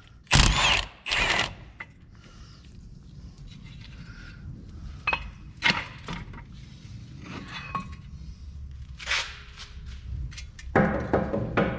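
Two short bursts from a cordless impact wrench on an extension, backing out the 21 mm brake caliper bracket bolts. Then scattered metal clunks and knocks as the caliper bracket is worked off the steering knuckle.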